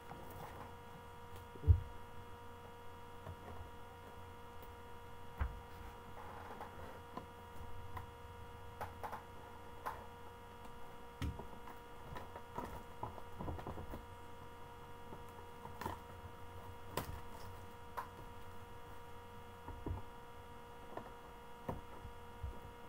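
Steady electrical hum with scattered light taps and knocks from a cardboard box being handled as it is opened, and one sharp thump about two seconds in.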